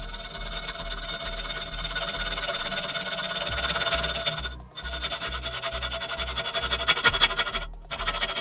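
Hand hacksaw rasping back and forth through a 2020 aluminium T-slot extrusion held in a vise, with two short breaks in the sawing. Background music with a steady low beat plays under it.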